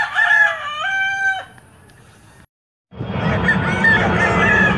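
A rooster crows once, a multi-note call whose last note drops lower and is held before it stops about a second and a half in. After a brief gap of silence, a dense, steady mix of sound starts about three seconds in.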